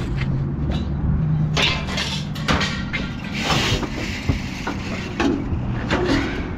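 An engine running steadily under a series of knocks and clatters from things being handled.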